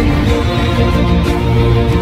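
Theme music with held chords.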